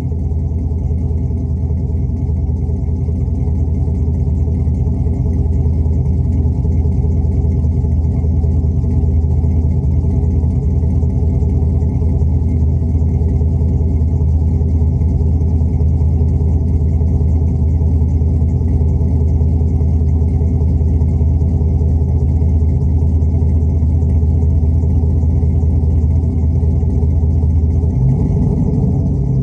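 LS 6.0-litre V8 engine idling steadily, warming up after a cold start, with a slight change in its idle note near the end.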